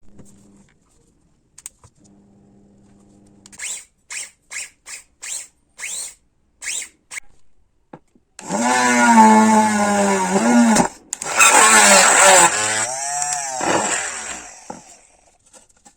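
Homemade cordless drill's RS-775 DC motor, first blipped in about nine short bursts, then run up to full speed. The pitch sags and climbs back near the end, as the motor slows under load and recovers.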